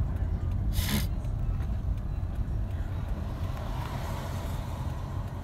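Car cabin noise: a steady low engine and road rumble heard from inside the car, with a short burst of noise about a second in.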